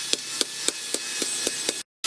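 Hammer striking steel in an even rhythm, about three and a half blows a second, over a steady hiss. The sound cuts off abruptly shortly before the end.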